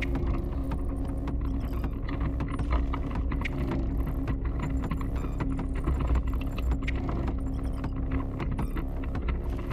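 Rapid clicking and rattling from a camera mounted on a speargun being carried, over a steady low hum.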